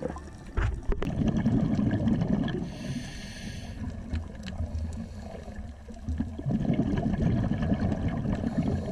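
Scuba diver's regulator breathing heard underwater: two long stretches of exhaled bubbles rumbling and gurgling, with a short hissing inhale about three seconds in. A sharp click about a second in.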